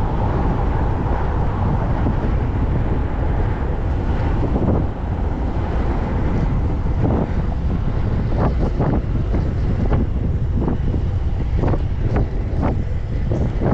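Wind buffeting the microphone on a moving bicycle, a steady low rumble. From about seven seconds in, a run of short, irregular knocks or rattles.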